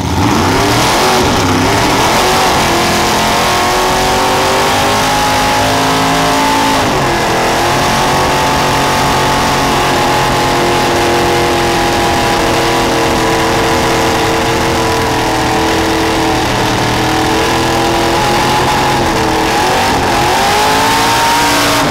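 First-generation Chevrolet S-10 pickup doing a burnout: its engine revs up at the start and is held at high revs, with the rear tyres spinning on concrete. The revs dip and climb back twice, about 7 seconds in and again near the end.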